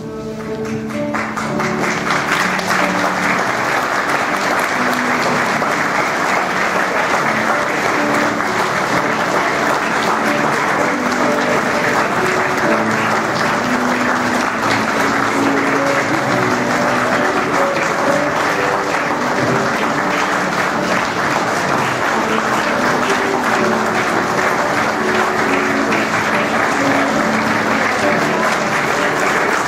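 A congregation applauding steadily, building up over the first second or two, with instrumental music playing short plucked-sounding notes underneath.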